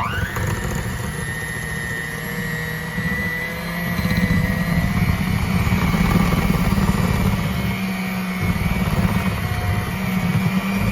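Electric mixer beating cream cheese, sugar and vanilla in a bowl: the motor spins up with a quick rising whine, then runs steadily, getting louder about four seconds in.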